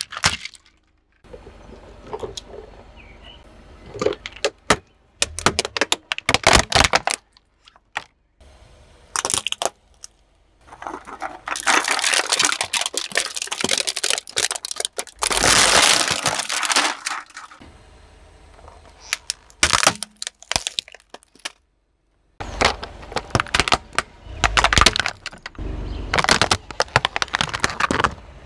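A car tyre rolling over and crushing plastic toys and cans of Red Bull: a run of sharp plastic cracks and crunches, with a longer, denser stretch of crumpling around the middle. The sound breaks off abruptly several times between clips.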